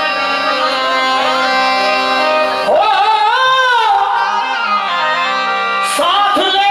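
Live Hindi devotional song (bhajan) through a PA: steady instrumental backing plays alone at first, then a male singer's amplified voice comes in about three seconds in with a long, wavering held line, and comes in again near the end.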